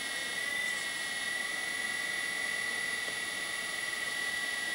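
Hydraulic pumps of a LESU 9150 RC excavator running at about 40% load: a steady high whine over a light hiss.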